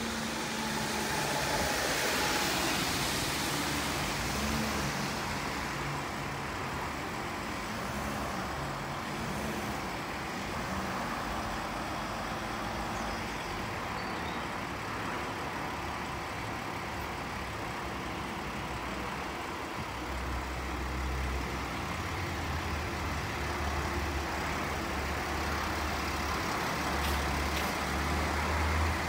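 Engines of a fire service Mercedes-Benz Sprinter van and a Volvo rescue truck running as they pull away on a wet road. A car passes with tyre hiss in the first few seconds, and the truck's deep engine rumble grows louder about two-thirds of the way through.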